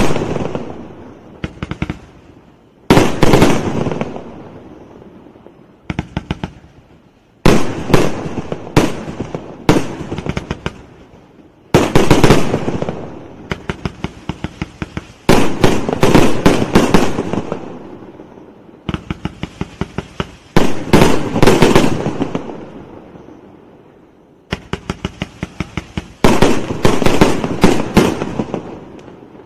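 A 308-shot firework cake firing in volleys every few seconds. Each volley is a quick string of sharp cracks, followed by a low rumble and echo that die away before the next one.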